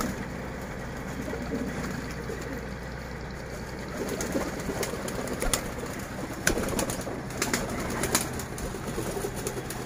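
Domestic pigeons cooing, a continuous low murmur, with a few sharp clicks or taps in the second half.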